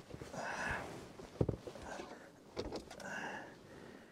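A man breathing heavily and sniffling in several audible breaths. A sharp knock comes about a second and a half in, and a few clicks follow about a second later.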